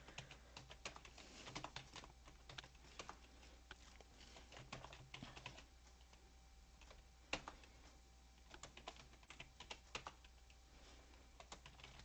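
Faint typing on a computer keyboard: runs of quick key clicks, with a pause of about two seconds in the middle broken by a single sharper keystroke.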